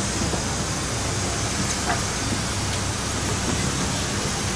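Steady airliner cabin noise heard from inside an Airbus: an even rushing hiss over a low hum.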